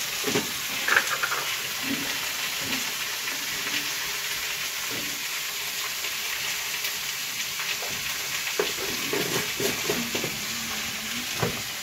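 Chopped mushrooms and onions frying in oil in a steel kadai over a gas flame: a steady sizzle as the squeezed, still-wet mushroom pieces hit the hot pan, with a few light knocks of handling.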